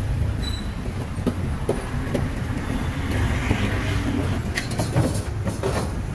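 Steady low rumble of motor traffic on the street, with scattered sharp clinks of metal tongs against lump charcoal in a grill.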